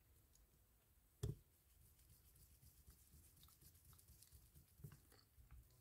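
Near silence, with faint small clicks of a screwdriver turning tiny set screws into a spinning reel's collar, and one sharper knock about a second in.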